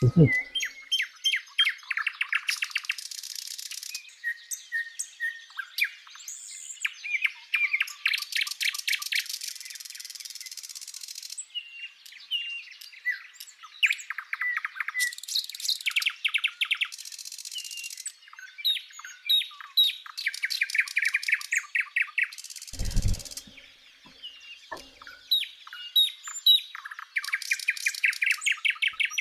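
Wild birds singing: many high chirps and rapid trills, phrase after phrase. A brief low thump about three-quarters of the way through.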